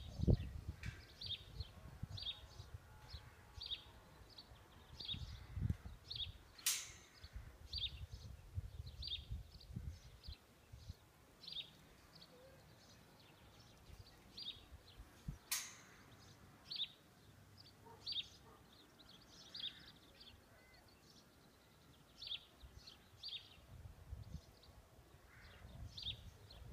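A small bird calling over and over: short high chirps about one or two a second, with wind rumbling on the microphone at the start and again near the end, and two sharp clicks.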